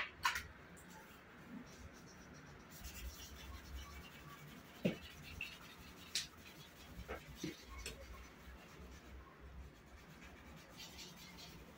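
Faint pencil scratching and rubbing on drawing paper, with a few light taps scattered through it.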